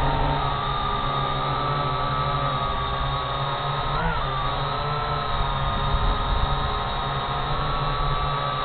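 Syma X8G quadcopter's brushed motors and propellers whining steadily in flight, heard close up from the drone itself, with a brief rise and fall in pitch about four seconds in as the throttle changes.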